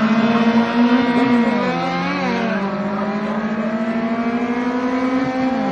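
Honda Civic VTi D16 four-cylinder engine accelerating hard from a standing start, revving up through the gears. The pitch climbs, then drops at an upshift about a second and a half in and again near the end.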